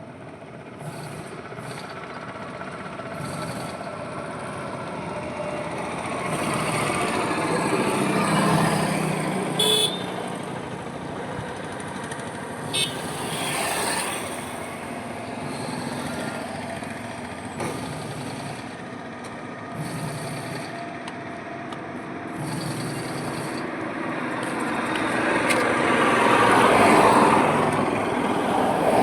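Highway traffic: a steady stream of vehicles, with passes swelling and fading one after another and the loudest pass near the end. Two brief sharp sounds cut through about ten and thirteen seconds in.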